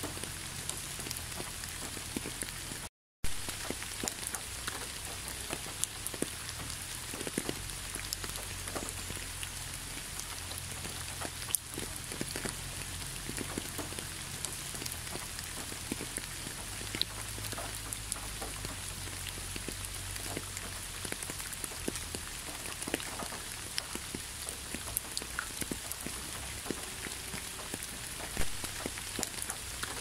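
Steady rain falling on a wet asphalt road, with many separate drops ticking through an even hiss. The sound cuts out completely for a split second about three seconds in.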